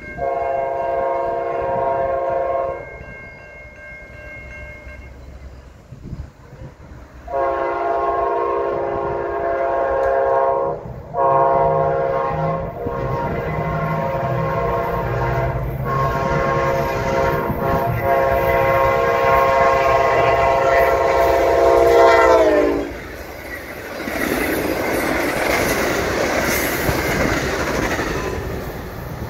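Train horn sounding a long blast, then after a pause a second long blast and a third held for over ten seconds, its pitch falling as the locomotive passes. The horn then gives way to the steady rush and clatter of the train's wheels on the rails.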